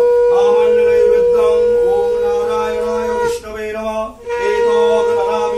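Conch shell (shankha) blown in one long steady note at a puja, breaking briefly twice past the middle, with voices chanting over it.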